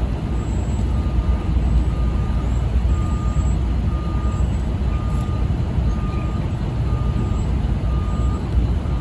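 A truck's reversing alarm beeping at a steady pace, roughly once a second, over the low, steady rumble of its engine as it slowly moves a flatbed.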